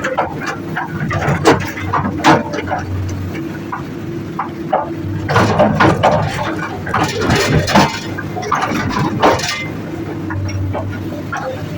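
Komatsu PC200-8 excavator's diesel engine running steadily, with rocks clacking and scraping against the steel bucket in repeated sharp knocks. The knocks come thickest from about five to ten seconds in.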